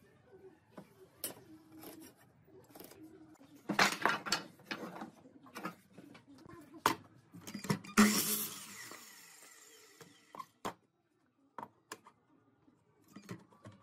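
Wooden boards knocking and clattering as they are handled and set down on a wooden workbench: scattered light taps, with louder clatters about four and eight seconds in. The one at eight seconds is the loudest and takes about two seconds to die away.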